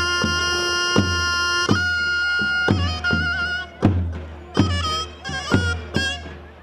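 Davul and zurna playing a halay dance tune. The zurna holds one long note, then breaks into quick melodic runs about two seconds in, over steady davul beats.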